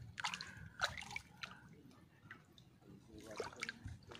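Scattered light drips and small splashes of seawater as hands dip and rinse a small fish in shallow water.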